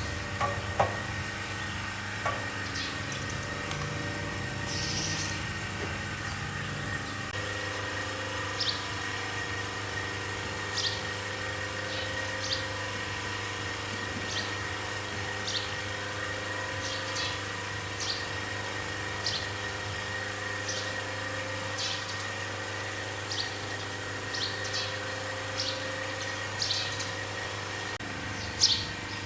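A steady machine hum holding a few fixed tones, with short high bird chirps about once a second over it.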